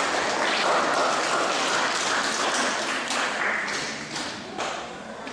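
Audience applauding, a dense patter of many hands clapping that fades away over the last second or so.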